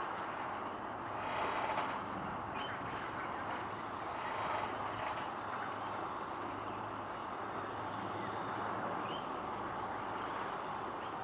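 Steady outdoor background rumble with a faint low drone underneath, and a few faint bird chirps scattered through it.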